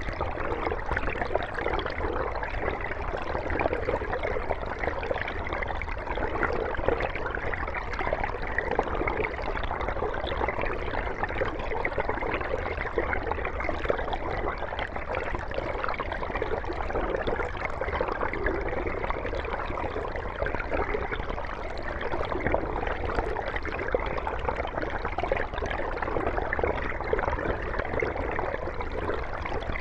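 Mountain stream running over rocks: a steady, even rush of flowing water with fine gurgling and splashing.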